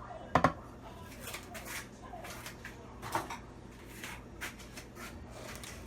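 Handling sounds in a kitchen: a sharp double knock about half a second in, then a string of lighter taps and rustles.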